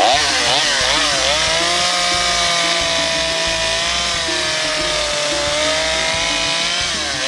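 Chainsaw running at high speed while cutting into the thick husk of a green coconut. Its pitch dips and wavers in the first second or so and again near the end as the chain bites and the engine bogs under load, and holds steady in between.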